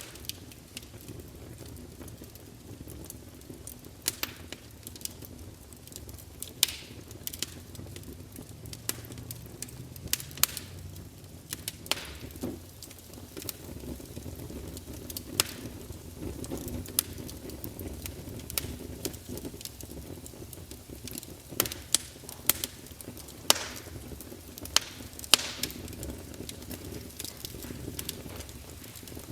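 Wood campfire burning: irregular sharp crackles and pops from the burning logs over a steady low rumble of the flames.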